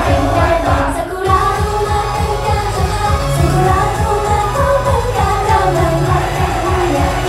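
Female idol-pop group singing live in unison into microphones over a backing track with a steady beat, heard through PA speakers; the beat drops out briefly about a second in, then carries on.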